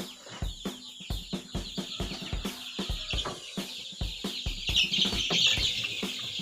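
A brooder full of young chicks peeping continuously, louder for a moment a little past the middle, over background music with a steady drum beat.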